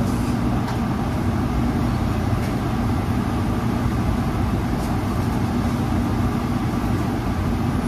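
Steady drone of a commercial kitchen exhaust hood fan: a low hum under an even rush of air.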